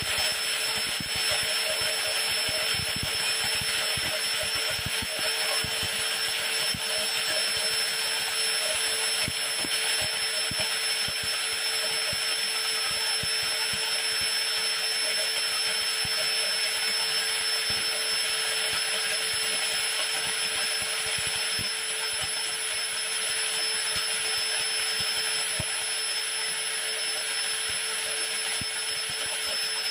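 Electric hand angle grinder running steadily as a homemade corn mill, its dull ceramic-cutting disc grinding dried corn kernels into meal. A steady high whine over a gritty rasp, with many irregular small ticks.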